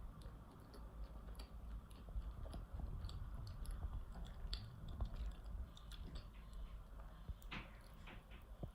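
Close-miked chewing of a cream-filled doughnut topped with biscuit crumb: soft, faint mouth sounds with many small scattered clicks and a sharper click near the end.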